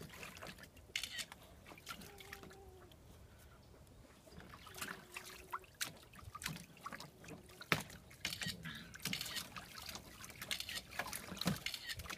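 Puppies splashing and pawing about in shallow water: small irregular splashes and trickling drips, busier in the second half.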